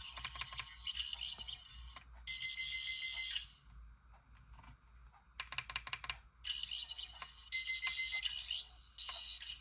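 Toy sonic screwdriver playing its high electronic scanning sound effect from its small speaker in several bursts of a second or two, with runs of sharp clicks between them.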